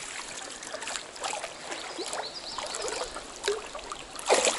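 Stream water trickling, with small splashes and scattered clicks and knocks as a hooked brown trout is brought in. A man's voice starts near the end.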